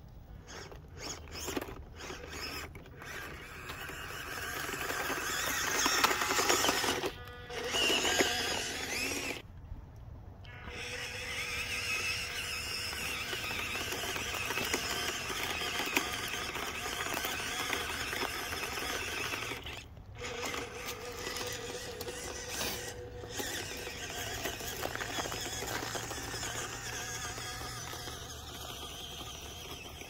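Small electric motor and gear drive of a 1:18-scale RC crawler whining as it drives, with tyres crunching through snow and ice. The whine cuts out briefly several times as the throttle is let off.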